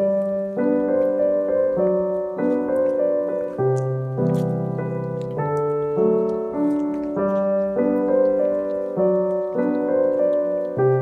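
Background piano music: a gentle run of notes and chords, changing about every second.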